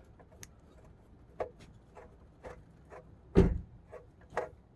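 Screwdriver turning a tight screw out of a power converter's sheet-metal faceplate: a string of short, irregular clicks and creaks, with one louder knock about three and a half seconds in.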